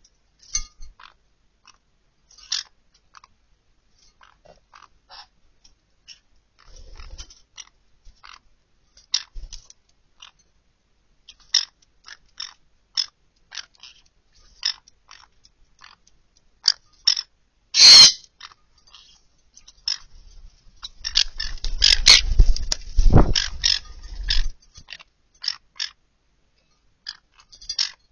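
Green-cheeked conures bathing in a shallow glass dish of water: scattered small splashes and ticks as they dip and shake, with one loud splash about two-thirds of the way in and a longer spell of heavier splashing and flapping a few seconds later.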